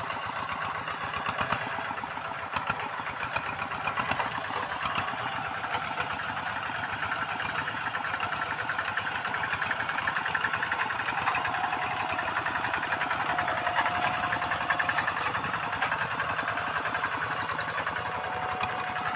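Two-wheel hand tractors' single-cylinder diesel engines running steadily under load while working the field, with a rapid, even firing beat. A few sharp knocks stand out in the first few seconds.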